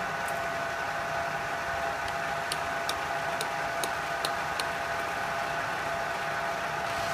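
Benchtop belt sander running steadily with an even motor hum. A run of sharp ticks comes in the middle.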